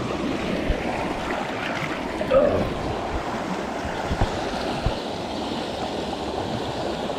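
Creek water running steadily over the streambed, with a few brief low bumps.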